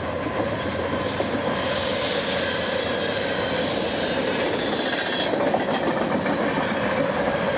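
Fast-moving empty unit grain train rolling past, its steel wheels rumbling and clattering steadily on the rails. A higher hiss fades out about five seconds in.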